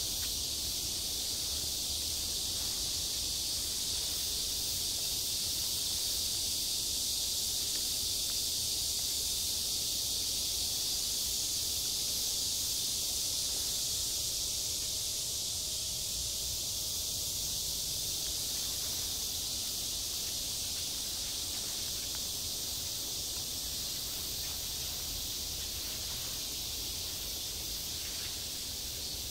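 A steady, high-pitched chorus of summer insects, continuous and unbroken.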